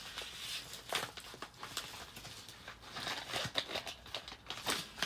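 Plastic packaging being opened and handled: crinkling and rustling, with scattered short clicks.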